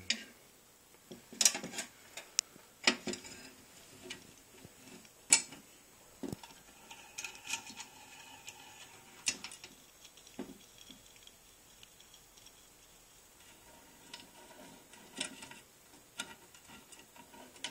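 Scattered light metal clicks and taps as a hand-made tubular rivet clincher is handled and fitted over a rivet on a pressed-steel toy truck bed and lined up.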